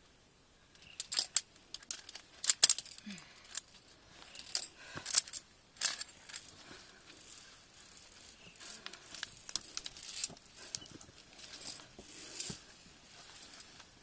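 Via ferrata carabiners clinking and scraping on the steel safety cable, in scattered sharp metallic clicks that are loudest and densest in the first six seconds.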